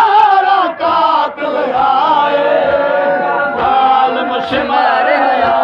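A crowd of men chanting a noha, a Shia mourning lament, in unison, led by a male reciter singing into a microphone; the voices hold long, sliding notes.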